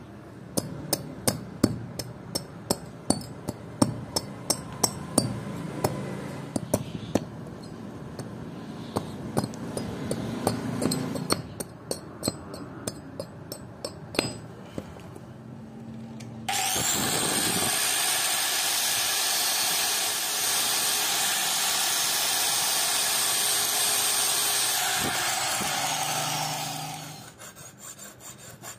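Sharp hammer taps, about two a second, seating the forged axe head onto its wooden handle. A few seconds after they stop, a power tool starts suddenly, runs steadily for about ten seconds and winds down.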